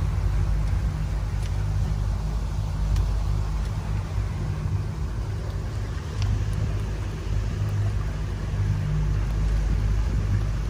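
Tour boat's motor running steadily under way, a low even drone.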